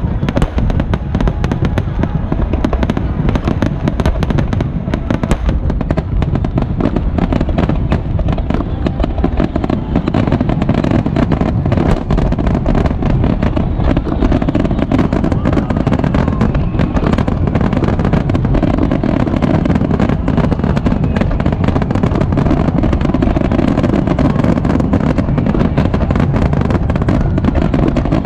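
Fireworks display: a dense, unbroken barrage of shell bursts and crackle, the bangs running together over a steady low rumble.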